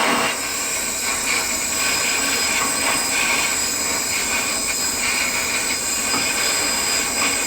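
A steady hissing rush of noise with no clear pitch.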